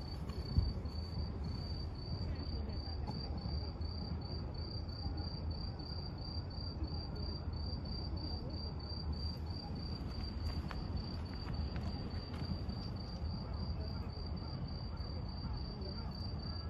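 A cricket chirping steadily in even, high-pitched pulses, about three a second, over a low steady rumble; a brief knock about half a second in.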